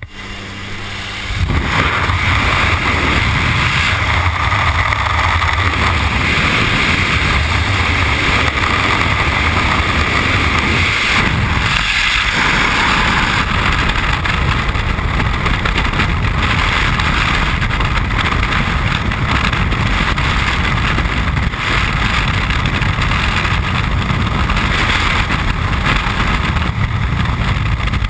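Freefall wind blasting over a helmet-mounted camera's microphone. It is a loud steady rush that comes in about a second and a half in, as the jumper leaves the aircraft.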